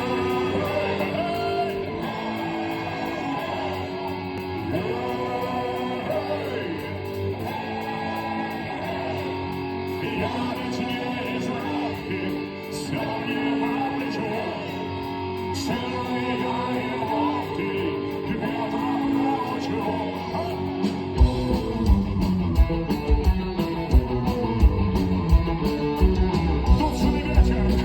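Rock music with guitar and singing; a bass-heavy beat comes in about 21 seconds in.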